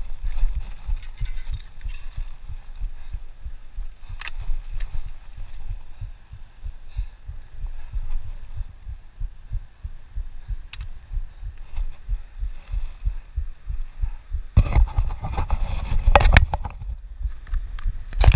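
Wind buffeting an action camera's microphone, heard as a loud, uneven low rumble, with a few light knocks. A louder stretch of rustling and knocks starts about fifteen seconds in and comes again near the end.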